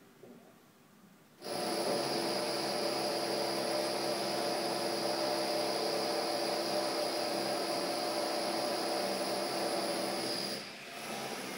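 Construction-site machine on the scaffolded building starting abruptly about a second and a half in and running loud and steady with a high whine, then dipping briefly near the end before carrying on slightly quieter.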